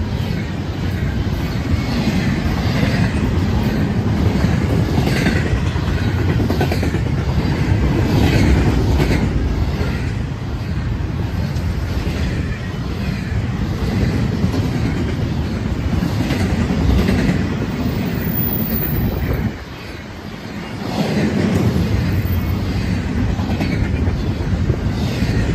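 Union Pacific intermodal freight train's double-stack well cars rolling past: a steady rumble with the clickety-clack of wheels over rail joints. It drops briefly quieter about twenty seconds in, then picks back up.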